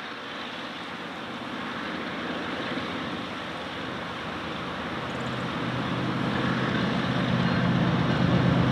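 Approaching diesel freight locomotive, its engine drone growing steadily louder over the second half, over a steady rush of wind on the microphone.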